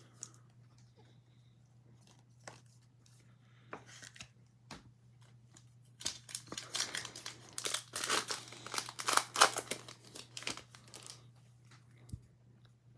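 A 2021 Absolute Football trading-card pack wrapper torn open and crinkled for about five seconds, starting about six seconds in, after a few faint clicks of card handling.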